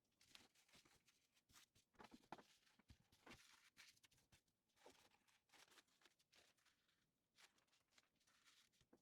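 Faint handling sounds of cutlery and drawer items being sorted: soft, irregular small clicks and clinks, with light rustling between them.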